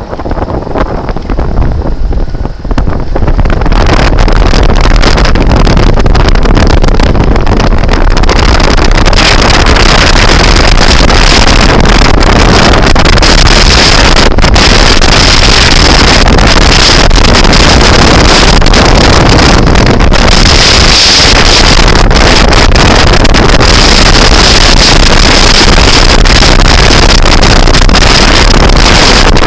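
Loud wind buffeting on the microphone of a moving scooter, drowning out the ride. It builds over the first few seconds, then stays steady at full, overloaded loudness.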